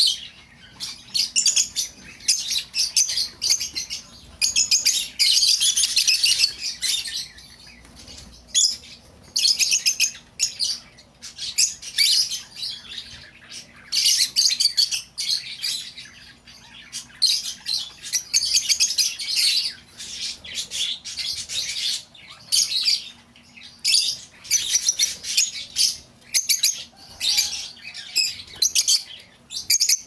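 Peach-faced lovebirds chattering: shrill, rapid, high-pitched chirps in bursts of a second or two with short pauses between.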